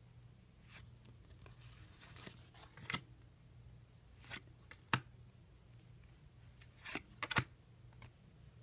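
Trading card pack and cards being handled: a faint rustle about two seconds in and a handful of short, sharp snaps and clicks as the pack is opened and the cards taken out.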